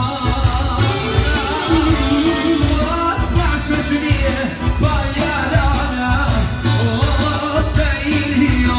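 Loud live Albanian wedding music: a singer over a band with a steady beat and plucked strings.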